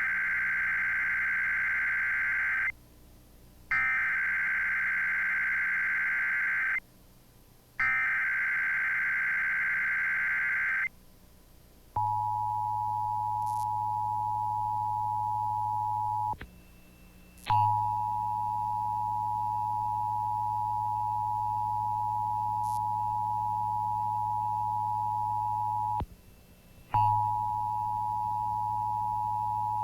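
Emergency Alert System (SAME) header for a flood warning: three bursts of buzzing digital data tones, each about three seconds long with a second's pause between. It is followed by the EAS attention signal, a steady two-tone beep of 853 and 960 Hz that cuts out briefly twice.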